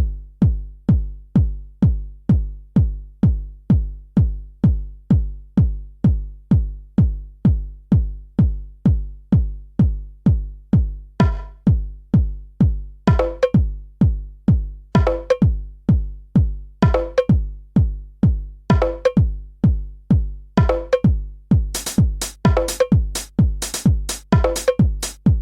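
Electronic background music: a steady drum-machine kick at about two beats a second, with another part coming in about a third of the way through and a bright hi-hat layer added near the end.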